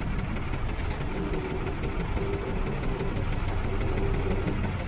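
An engine idling steadily, a low continuous rumble with a faint steady hum over it through the middle.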